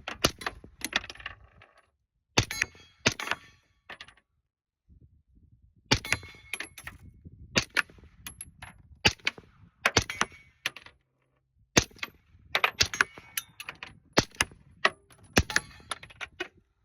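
Glock 19 pistol with a JK Armament RPX 9 suppressor firing 147-grain subsonic 9mm: a long string of short, sharp suppressed shots at irregular intervals, with a pause of about two seconds near the start. The shooter calls it quiet.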